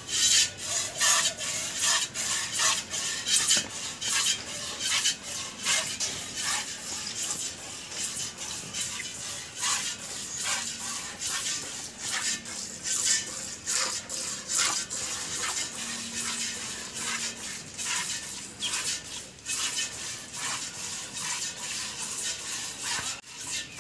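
Rhythmic squirts of milk hitting a steel bucket as a cow is milked by hand, one short hiss after another at an even pace.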